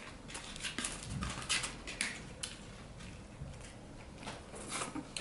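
Close-up eating noises: chewing a mouthful of Big Mac and fries, with irregular short crackles and rustles from the paper burger wrapper and fries box being handled.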